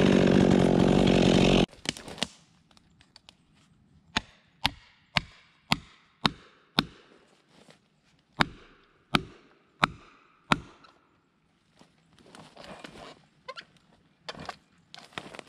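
Chainsaw running, then cutting off suddenly just under two seconds in. A string of sharp single striking blows follows, about two a second, in a run of six and then a run of four, with softer rustling near the end.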